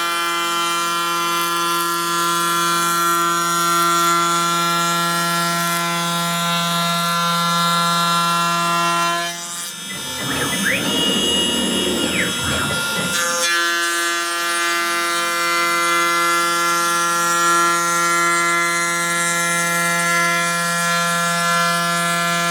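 CNC router spindle running with a steady high whine. Near the middle it gives way for about four seconds to a noisier, rougher stretch, then the whine comes back.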